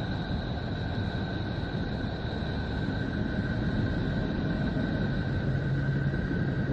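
Space sonification played as the sound of Neptune: the planet's electromagnetic emissions converted into audio, heard as a steady, deep rumbling drone with two faint high tones held throughout. A low hum joins about two-thirds of the way in.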